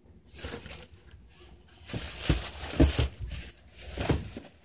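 Handling noise close to the microphone: rustling with a few soft thumps as the fur-lined boots are moved and set aside. It grows louder about two seconds in.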